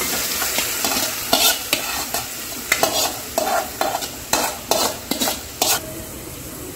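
Marinated mutton sizzling as it goes into hot ghee in a steel pot, with a steady hiss. A steel spoon scrapes and knocks against the metal a dozen or so times in quick, irregular strokes from about a second in.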